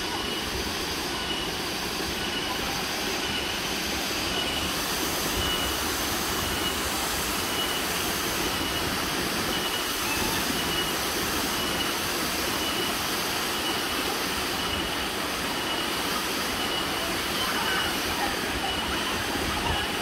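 Small waterfall pouring into a pool: a steady rush of falling water. A faint high chirp repeats about once a second over it.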